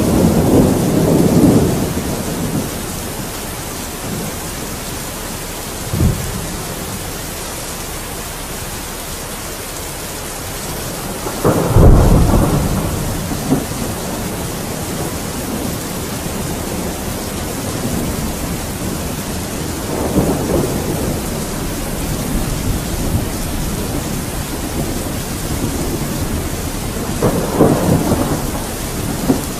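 Steady rain with rolling thunder: the loudest rumble comes about twelve seconds in, with others near the start, about twenty seconds in and near the end, and a brief thump around six seconds in.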